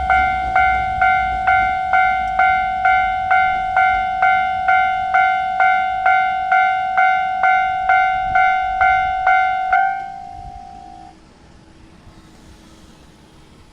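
Japanese railway level-crossing warning bell ringing, a little over two strikes a second, over a low rumble that fades early on. It stops about ten seconds in, leaving a brief ringing tail, as the crossing clears after the train has passed.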